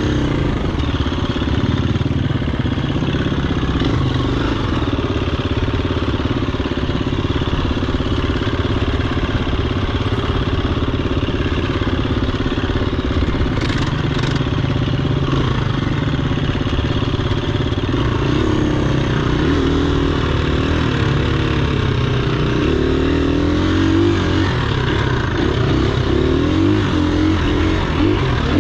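Dirt bike engine running while riding, its revs rising and falling with the throttle, most plainly in the second half.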